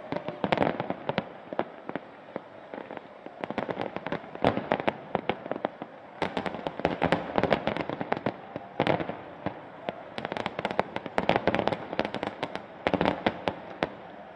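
Aerial fireworks shells bursting in rapid volleys of sharp cracks and bangs, with short lulls between the volleys.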